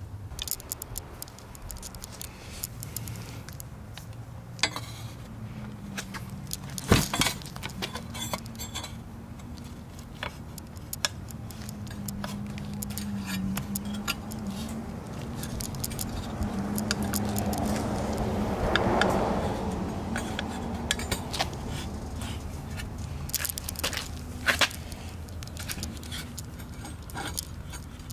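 Steel seat-lift bracket and hardware clinking and knocking against a truck seat's metal mounting plate as it is worked into place by hand, a string of scattered sharp clicks over a low steady hum. A broad rushing noise swells and fades a little past the middle.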